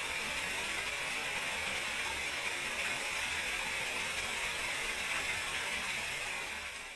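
Small waterfall splashing down a rock face, a steady rushing hiss that fades out near the end.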